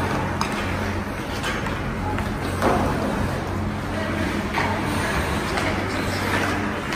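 Ice hockey game in an indoor rink: a steady low hum under scattered clicks and knocks of sticks and puck, with distant voices.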